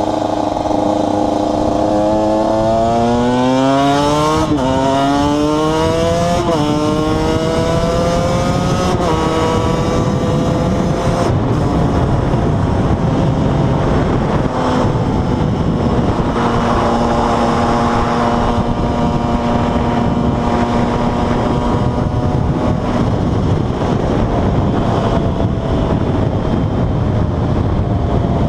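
KTM 125 EXC two-stroke single-cylinder engine accelerating through the gears. The revs climb and drop sharply at two upshifts in the first several seconds, then settle into a steady cruise with small changes in throttle.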